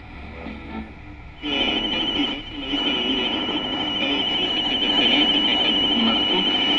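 Radio noise: static and interference, with a steady high-pitched whistle that cuts in about a second and a half in over a muffled, garbled broadcast voice.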